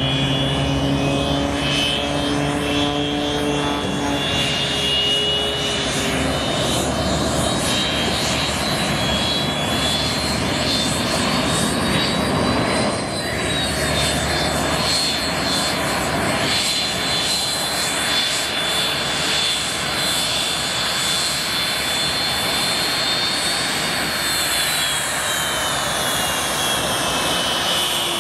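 F-86 Sabre's jet engine running on the ground as it taxis, a steady loud rush with a high whine that rises about twelve seconds in and sinks again near the end. A lower droning tone underneath fades out in the first few seconds.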